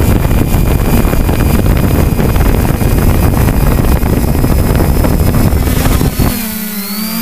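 Loud, low rumbling wind buffeting on the microphone; about six seconds in it cuts off and a droning tone with wavering pitch begins.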